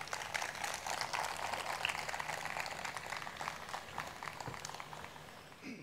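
Audience applauding, fading gradually.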